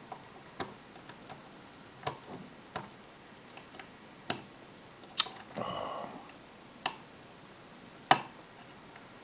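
Lock pick hook working the pins of a Union 5-pin Euro cylinder: irregular, sharp metallic clicks, about seven of them, with a short scraping screech of metal on metal a little past five and a half seconds in, as the picker tries to lift a pin that will not set.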